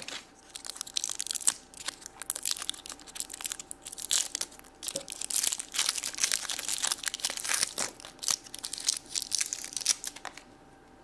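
Plastic wrapper of a modelling-clay pack crinkling and crackling irregularly as it is handled and torn open, stopping about half a second before the end.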